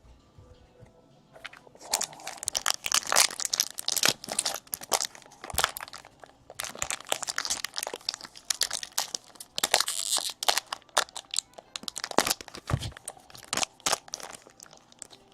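Trading card pack wrapper crinkling and tearing as it is worked open by hand: a dense run of irregular crackles starting about a second and a half in.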